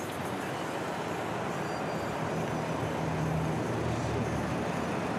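Steady motor-vehicle and traffic noise, with a low engine drone that comes up about a second and a half in and fades near the end.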